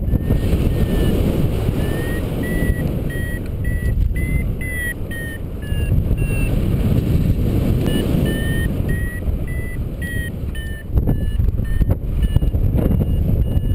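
Paragliding variometer beeping in short tones, about two a second, whose pitch rises and falls and which pause briefly in the middle, the beeps signalling that the glider is climbing in lift. Steady wind rushes over the microphone throughout.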